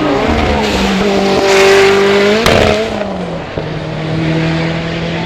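Supercar engine accelerating hard, its note climbing and holding high. About two and a half seconds in there is a sharp crack, and the note drops to a lower, steadier pitch.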